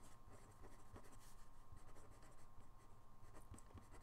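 Faint scratching of a pencil on paper as small capital letters are written, in short, quick strokes.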